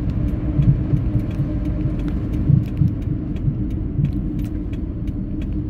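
Car driving on a paved road, heard from inside the cabin: a steady low rumble of road and engine noise with some low swells, and many faint, irregular sharp ticks.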